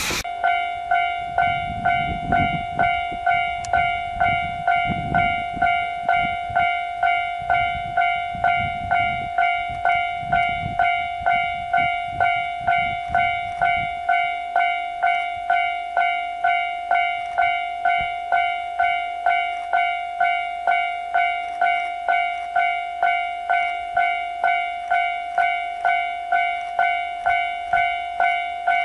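Railway level-crossing alarm dinging evenly, about three rings every two seconds, each ring a clear tone that fades before the next. A low train rumble runs beneath it for the first half and cuts off abruptly about halfway through.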